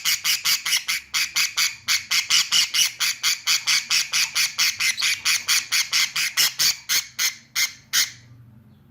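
Budgerigar squawking in a rapid, even run of short calls, about seven a second, stopping about eight seconds in.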